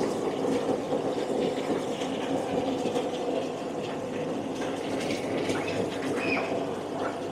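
Water flowing and bubbling in live-seafood holding tanks, a steady rush.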